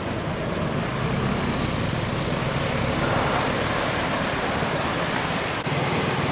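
Road traffic passing close by: a motor vehicle's engine and tyre noise, growing a little louder about a second in and then holding steady.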